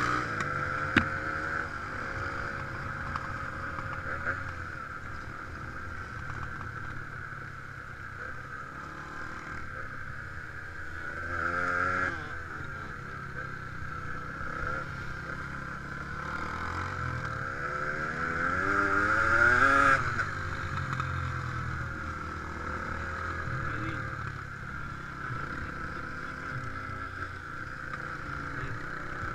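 ATV engine running under way on a dirt trail, its pitch rising and falling with the throttle. It revs up sharply about a third of the way in and climbs again in a longer, louder run about two-thirds in, then drops back, with a steady rushing noise throughout.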